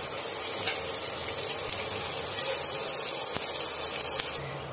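Oil sizzling steadily in a pan as a tempering of mustard seeds, urad dal, chopped ginger, green chilli and curry leaves fries, with a few faint ticks. The sizzle cuts off suddenly near the end.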